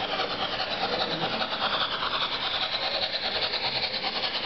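Märklin HO-scale Baden IVh steam locomotive model running along the track with its Rheingold coaches, a steady fine-grained mechanical running noise of the motor, gearing and wheels on rail.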